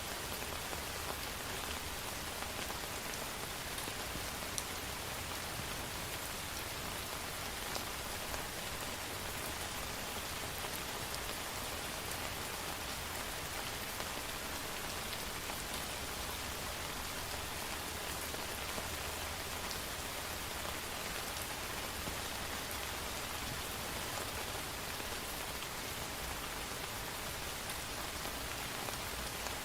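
Steady rain falling, an even hiss with a few sharper drop taps standing out here and there.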